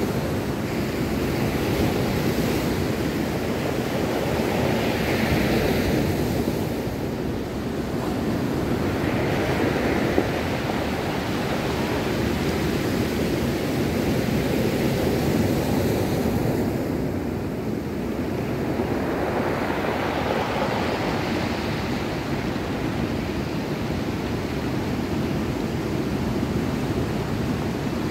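Sea surf breaking and washing up a pebble beach, a steady wash that swells and eases every four to six seconds as each wave comes in.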